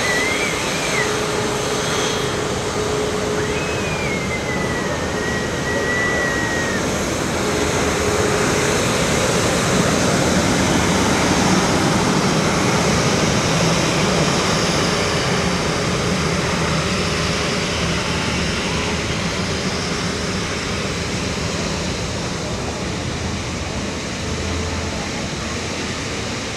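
Wide-body jet airliner's engines running at high power close by: a loud, steady rush that swells to a peak about halfway through and then slowly fades.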